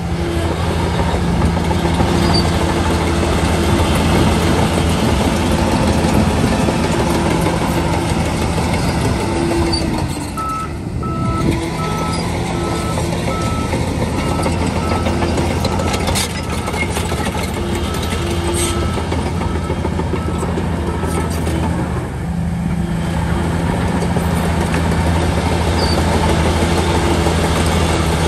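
Shantui DH17C3 bulldozer's diesel engine running steadily under load. Its reversing alarm beeps at an even pace for about ten seconds in the middle, while the dozer backs up. The engine note dips briefly as the beeping starts and again just after it stops.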